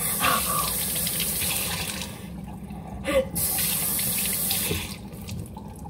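Kitchen tap running in two spells of about two seconds each, turned on and off, with a few faint vocal sounds between.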